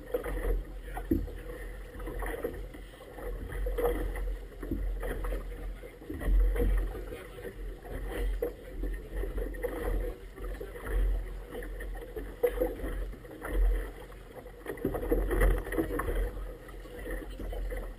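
Small waves lapping and slapping irregularly against the side of an inflatable boat, with wind buffeting the microphone in gusts.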